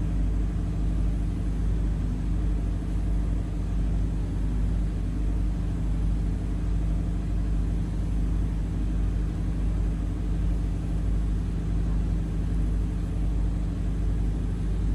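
An engine aboard the boat running steadily, a constant low drone with no change in speed.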